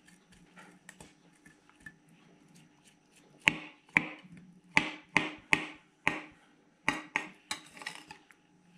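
Kitchen knife scraping and tapping against a plastic cutting board while cleaning the black membrane out of a salted mackerel's belly cavity. It is faint at first, then from about three seconds in comes a string of sharp clicks and short scrapes.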